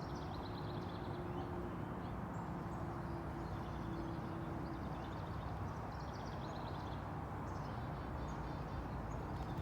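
Birds calling in short, rapid trills, repeated every second or two over a steady low rumble of background noise.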